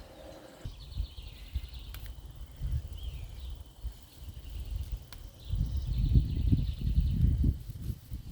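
Garden ambience: a steady high insect drone with two stretches of a rapid, high pulsing trill, under a low rumbling noise that swells to its loudest about six seconds in.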